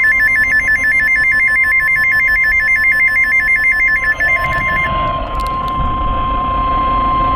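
Emergency alert attention signal ahead of a severe thunderstorm warning: a loud, steady single-pitch tone. Over it a second tone warbles rapidly between two higher pitches and stops about two-thirds of the way through.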